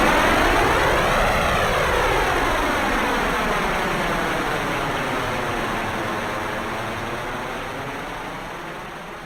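Jet airplane flying past and moving away, its engine noise fading steadily into the distance.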